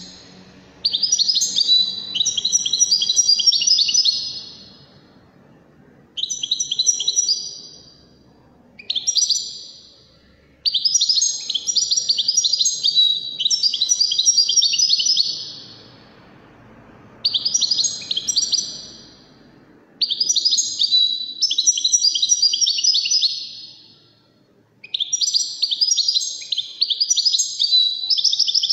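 European goldfinch singing: quick twittering, trilling song phrases, each one to five seconds long, repeated after short pauses.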